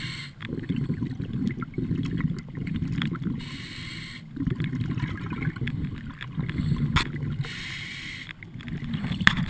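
Scuba diver breathing through a regulator, muffled by the underwater camera housing: a hissing inhale about every four seconds, each followed by a long low rumble of exhaled bubbles. A couple of sharp clicks near the end.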